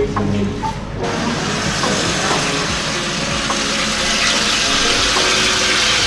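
Mutton birds (tītī, short-tailed shearwater) sizzling in their fat under an oven grill: a steady hiss that starts suddenly about a second in and grows slightly louder.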